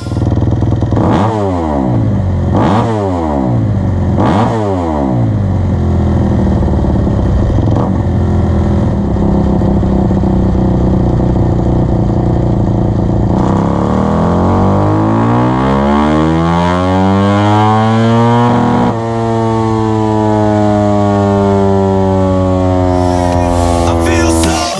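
2021 Kawasaki KX250's four-stroke single-cylinder engine on a dynamometer. It gives three quick throttle blips, then idles. About 13 seconds in it makes a long wide-open-throttle pull, its pitch climbing steadily for about five seconds, then breaking off and winding slowly down.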